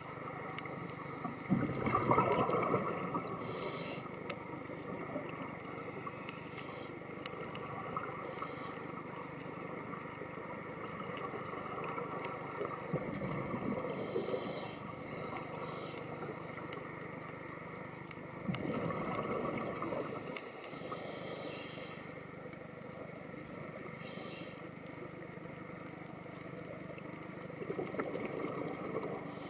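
Underwater sound of a scuba diver breathing through a regulator: a rumbling gush of exhaled bubbles every several seconds and short hisses of inhalation between them, over a steady faint hum.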